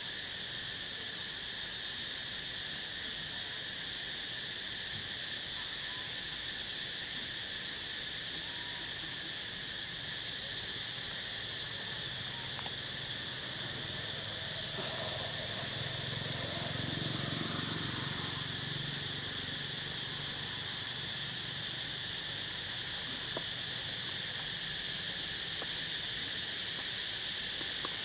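Steady, high-pitched drone of insects, one unbroken held tone with a weaker lower band beneath it. A low rumble swells and fades about halfway through.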